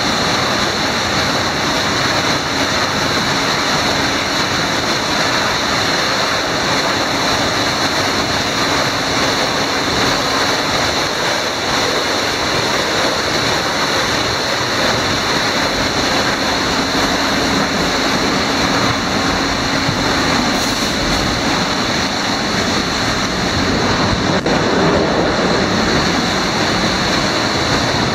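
Automatic tunnel car wash running: high-pressure spray arches jet water onto a car while rotating red-and-blue brushes scrub it, making a steady, loud rush of water. A faint low hum from the machinery comes and goes beneath it.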